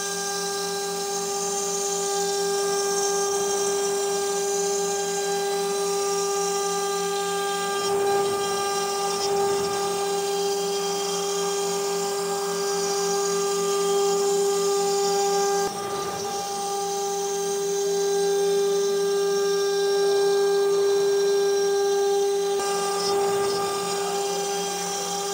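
CNC router spindle running with a steady high-pitched whine while its bit carves a relief pattern into a wood panel, with a hiss of cutting over it.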